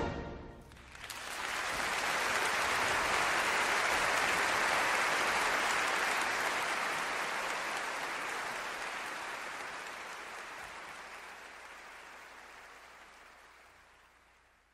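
The final chord of an orchestral piece dies away, then audience applause swells up about a second in and slowly fades out.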